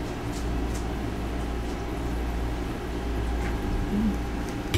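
A steady low mechanical hum, with a few faint clicks of a fork against a plate.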